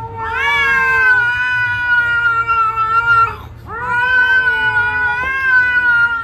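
Grey cat giving two long, drawn-out yowls, each about three seconds, rising at the start and then held, with a short break between them. It is a hostile warning yowl at another cat during a face-off.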